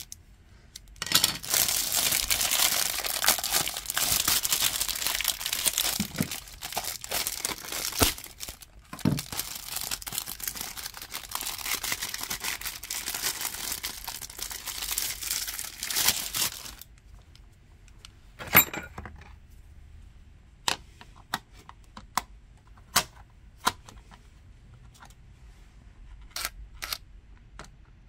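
Plastic packaging crinkling and tearing for about fifteen seconds, then a quieter stretch of scattered light clicks and taps.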